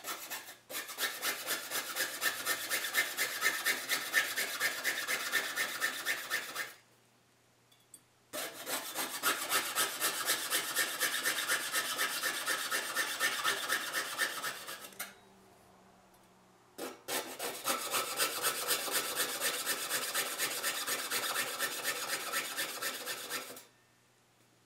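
Fine-bladed hand saw cutting thin copper sheet with quick, even back-and-forth strokes, in three runs of several seconds each with short pauses between.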